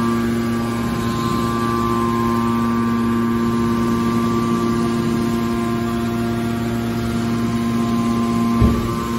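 Hydraulic power unit of a scrap-metal baler running: a steady pump hum and whine that holds its pitch, with a single short low thump near the end.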